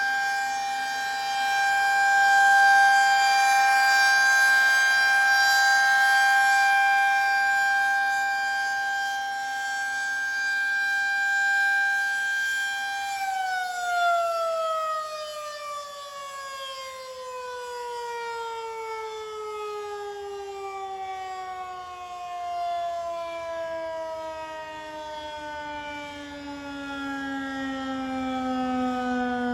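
Federal Signal 2001-SRNB outdoor warning siren sounding a high, steady tone that swells and dips slowly in loudness. About 13 seconds in it shuts off and winds down, the pitch sliding steadily lower as the rotor coasts.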